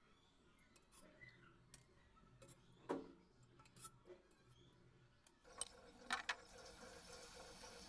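Faint, sparse clicks and taps of a metal slotted spoon against a steel kadhai of hot oil. About five seconds in, a faint steady sizzle of the hot oil sets in, with a few sharper clicks.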